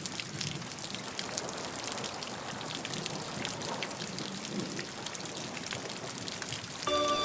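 Falling water: a steady hiss dotted with many small drops and splashes, like a waterfall or rain. Soft music with held notes comes in near the end.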